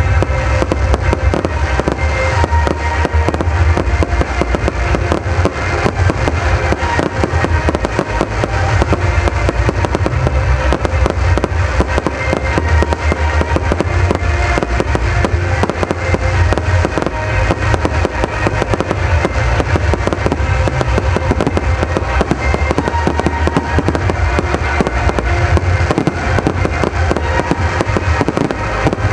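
Fireworks display firing without pause: a dense barrage of bangs and crackling from aerial shells and ground fountains over a deep rumble, with music playing underneath.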